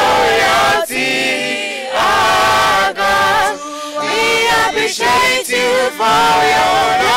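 Mixed choir of men and women singing a praise song in harmony, in phrases of held notes with short breaks between them.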